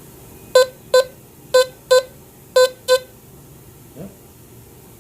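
Teknetics T2 SE metal detector sounding its target tone as a 2 euro coin is passed over the search coil in an air test. Six short beeps, all at the same pitch, come in three pairs about a second apart, one pair for each pass.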